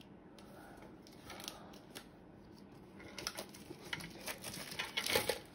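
Plastic shrink-wrap being opened on a Pokémon card tin: a run of crinkles, crackles and clicks that grows busier and louder toward the end.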